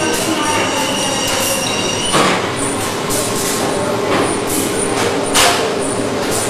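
Steady machine noise with several high whining tones, broken by a few short bursts of hiss, the loudest about two seconds in and about five seconds in.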